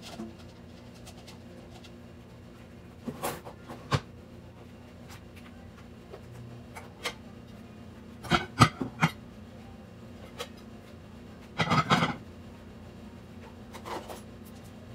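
Dishes clinking and clattering as they are taken from a drying rack and put away, in short bursts a few seconds apart, the loudest about eight and a half seconds in and another around twelve seconds, over a faint steady hum.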